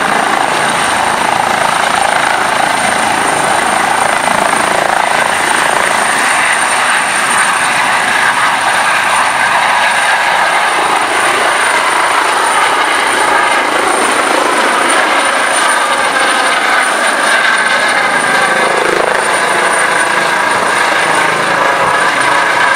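Eurocopter EC135 trauma helicopter lifting off and climbing away overhead: loud, steady rotor and turbine noise with a constant high turbine whine.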